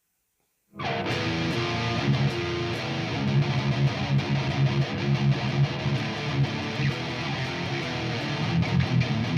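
Guitar being played, strummed chords starting abruptly about a second in after a moment of silence and then running on continuously.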